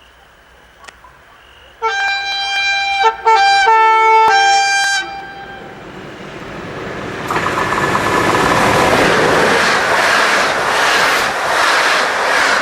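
Train horn sounding a chord of several tones for about three seconds, broken into a few short blasts. A train then passes, and the rumble and rattle of its wheels on the rails swells up and stays loud.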